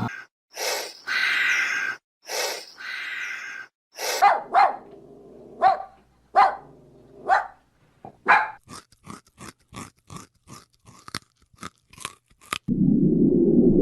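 A dog barking: a few harsh bursts, then separate barks about a second apart, then a quick run of short sharp barks, three or four a second. Near the end a low, steady animal call begins.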